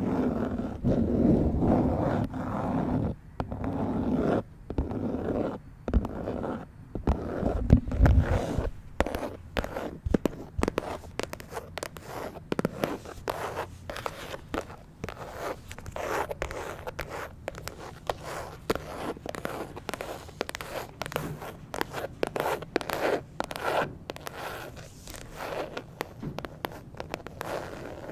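Long fingernails scratching and tapping on a phone case, close to the microphone. The strokes come as quick, zipper-like scrapes and clicks, heavier and lower for the first several seconds, then lighter and quicker.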